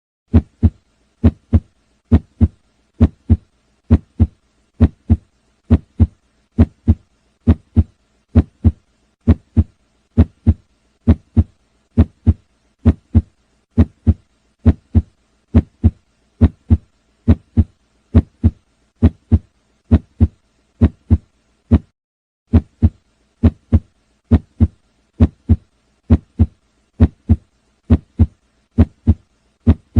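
Heart sounds: the paired lub-dub of the first and second heart sounds, repeating steadily at about one beat a second, with one slightly longer pause about two-thirds of the way through.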